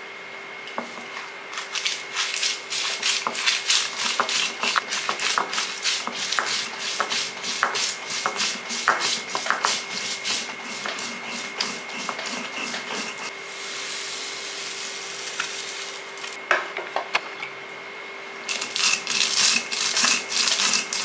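Stone roller of an ammi grinding stone rolled back and forth over dry red chillies and roasted horse gram on the stone slab: quick gritty scraping strokes as the chillies and gram are crushed. The strokes ease off briefly near the end, then resume.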